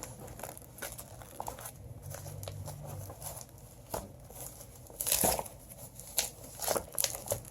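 Packaging being crinkled and torn open by hand: scattered rustles and small clicks, with a louder rip about five seconds in and two shorter ones after it.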